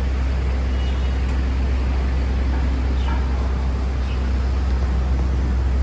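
A loud, steady low rumble with a wash of noise over it, of the road-traffic kind.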